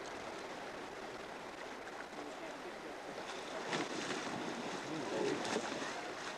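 Steady rush of river water; from about three and a half seconds in, irregular splashing as a hooked king salmon thrashes at the surface near the bank, with faint voices in the background.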